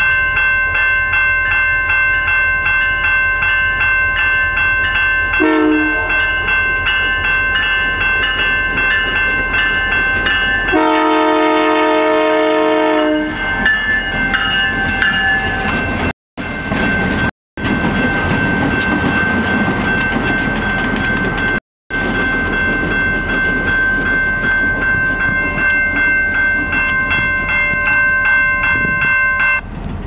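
Canadian Pacific diesel locomotive air horns sounding long held chords. A lower, louder horn chord sounds for about two seconds near the middle, the sound cuts out abruptly three times at clip edits, and the horn stops shortly before the end.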